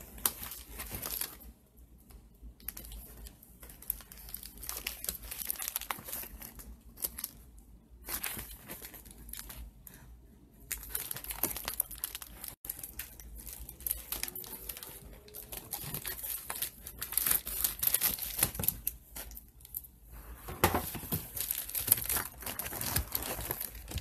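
Plastic packaging being handled and torn open by hand, crinkling and tearing in irregular bursts, loudest in the last third.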